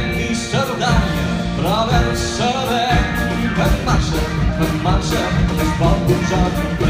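Live band music with a steady beat and a melody line over it.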